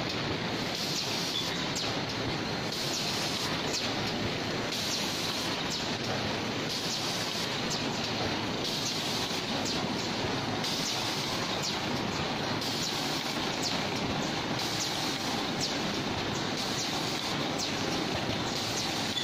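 Automatic PP woven bag cutting and sewing machine running: a steady mechanical din with frequent short clicks and bursts of hiss.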